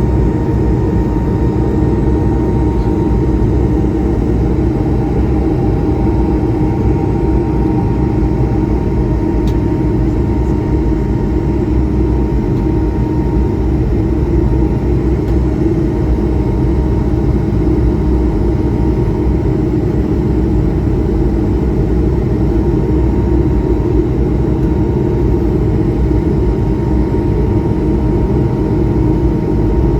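Cabin noise inside an Airbus A220-300 jetliner: its Pratt & Whitney PW1500G geared turbofan engines running, with airflow, giving a loud, steady rumble and a faint steady whine over it.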